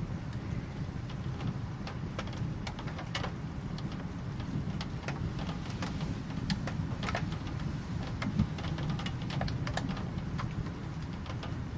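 Rain falling, with many separate drops ticking sharply and irregularly on a hard surface over a steady low rumble.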